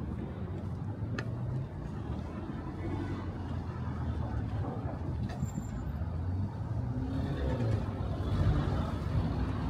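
Road traffic on a busy city street: cars, buses and trucks running past in a steady rumble, with a brief high squeal about five seconds in.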